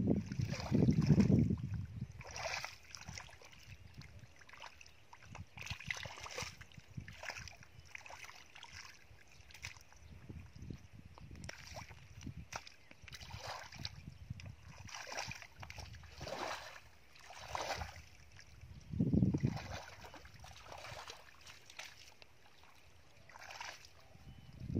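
Bare feet squelching and splashing through shallow, soupy mud, a wet step about once a second. There are a few heavier low thuds at the start and about three-quarters of the way through.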